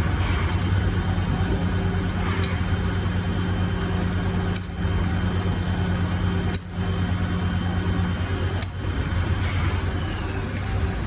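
Haas ST-20 CNC lathe running with a steady machine hum, a sharp click coming roughly every two seconds. One of the hum's tones stops about eight seconds in.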